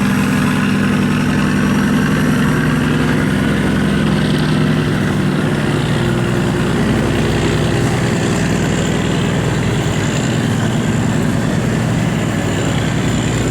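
Diesel engine of a large river cargo barge running hard under heavy throttle as it accelerates: a loud, steady, deep engine drone with exhaust noise, smoke pouring from its stack.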